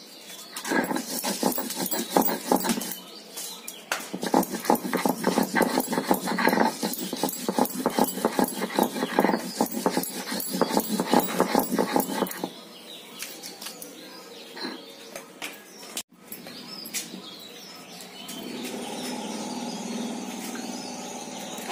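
Stone roller (nora) grinding ginger and green chillies on a grinding slab (sil): quick back-and-forth rasping strokes of stone on stone for about twelve seconds, then quieter, scattered scraping as the paste is gathered up.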